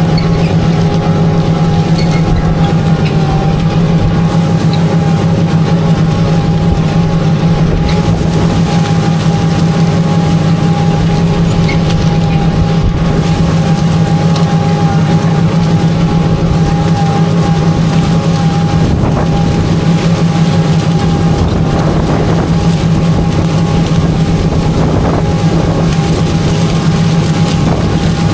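Tractor engine running at a steady, unchanging drone while pulling an in-line ripper through the ground.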